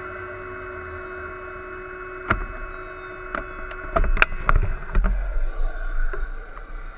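Steady mechanical whine from the radio-controlled model jet, with a few high tones slowly falling. From about two seconds in come sharp knocks and bumps, loudest and most frequent around four to five seconds, as the airframe and cockpit camera are handled, followed by a low rumble.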